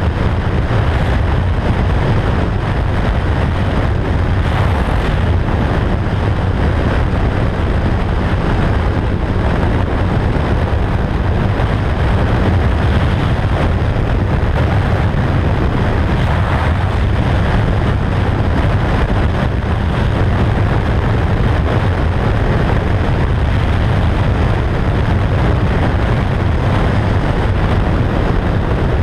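Motorcycle cruising at a steady highway speed: the engine runs at an even pitch under a constant rush of wind noise on the bike-mounted camera.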